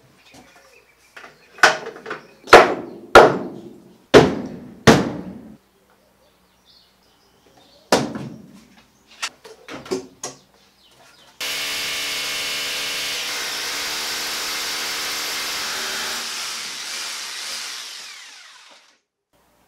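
A run of sharp knocks on the wooden bracket, then a power drill running steadily for about seven seconds, boring into the concrete-block wall.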